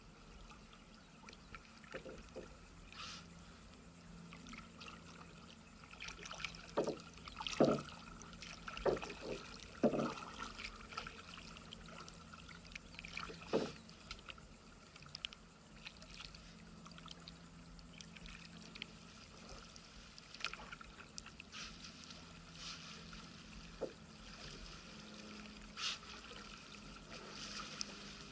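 Water splashing and dripping around a kayak as it is paddled, with a run of sharper, irregular splashes in the first half.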